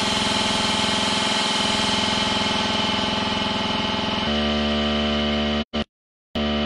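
Electronic dance music from a DJ set: a dense, buzzing synth sound with a rapid pulse, which about four seconds in gives way to a held droning chord. Near the end the sound cuts out completely for about half a second, then comes back.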